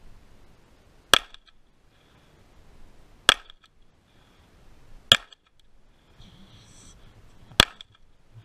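Four single pistol shots from a Glock pistol, spaced about two seconds apart.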